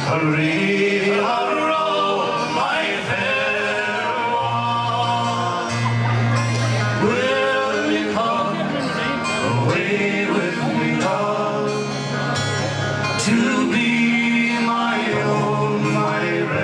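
Live folk band music: acoustic guitars and bass under male singing, played through stage speakers.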